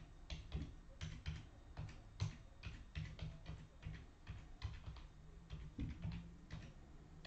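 Typing on a computer keyboard: short, uneven key clicks, a few a second.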